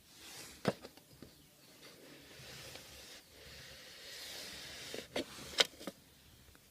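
Rustling and scraping noise that swells twice, with a few sharp clicks or knocks, the loudest near the end.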